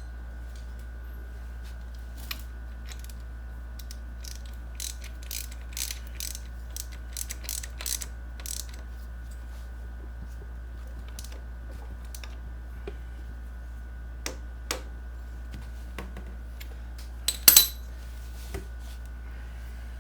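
Wrench clicking in quick runs as the 17 mm nut is run down onto the Yamaha XS650 alternator rotor, then a few sharp metal knocks, loudest as two blows close together near the end: a mallet striking the wrench to tighten the rotor nut.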